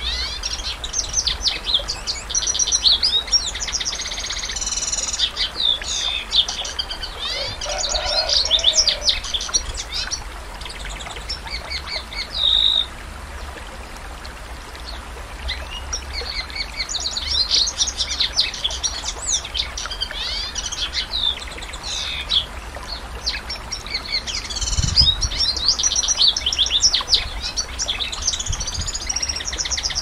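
Domestic canary singing: long runs of fast trills and chirps, with one held note about twelve seconds in, then a few seconds' lull before the song resumes. A steady low hum runs underneath.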